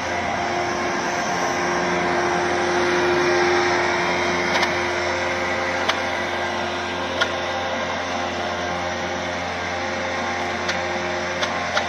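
Darjeeling Himalayan Railway B-class steam locomotive standing with steam hissing steadily, a low hum underneath and a few sharp clicks.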